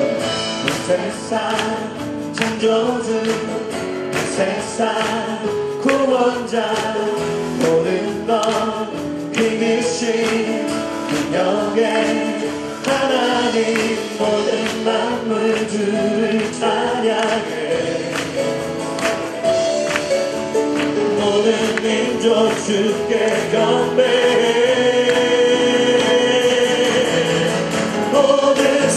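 Live worship band playing a gospel praise song: a man singing over acoustic guitar, electric guitar and drums.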